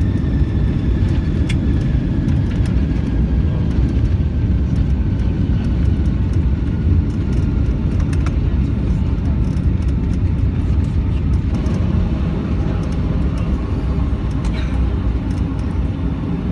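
Boeing 757-200 cabin noise during the landing rollout: a loud, steady low rumble of the engines and the wheels on the runway, with the wing's ground spoilers raised. A faint whine slides down in pitch over the first several seconds, and the rumble eases a little near the end as the jet slows.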